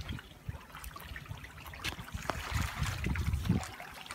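Water splashing and trickling at the surface of a biofloc fish tank crowded with pangasius, with many small spatters. A low rumble comes in about halfway through.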